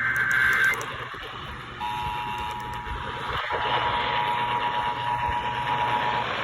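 Emergency Alert System broadcast: the last data burst of the SAME header (a harsh warbling buzz) cuts off under a second in, and after a short gap the two-tone EAS attention signal comes in, held steady for about four seconds over a hiss of radio static.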